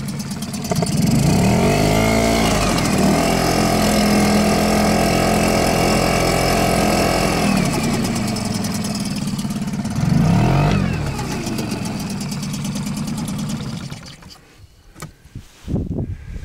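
Yamaha 3 hp single-cylinder two-stroke outboard motor running under way. It revs up about a second in and holds high for several seconds, drops back, gets a short burst of throttle around ten seconds in, then settles and cuts off about fourteen seconds in. A few light knocks follow near the end.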